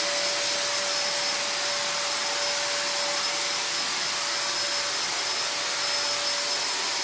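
Handheld electric disinfection fogger running steadily as it mists disinfectant: an even rushing blow with a constant motor whine underneath.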